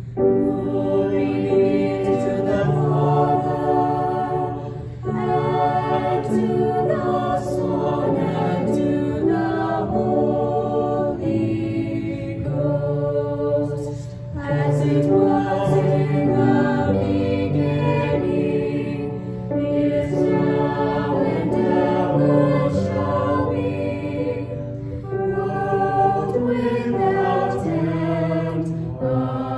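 A choir singing a slow hymn with instrumental accompaniment, in long phrases with brief breaks between them.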